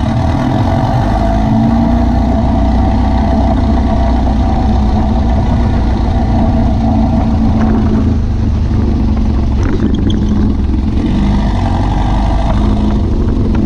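VW beach buggy's engine running at low revs, with the revs lifting slightly about two seconds in and again around seven to eight seconds in.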